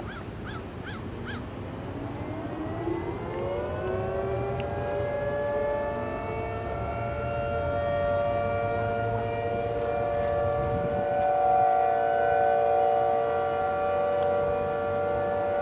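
Several outdoor tornado warning sirens on their monthly test, winding up together: their pitches rise over the first few seconds and settle into a chord of steady overlapping tones that slowly grows louder.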